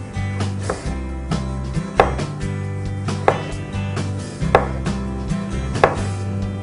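Kitchen knife slicing a tomato into thin rounds, the blade knocking sharply on a plastic cutting board about every second and a quarter, with lighter cuts in between.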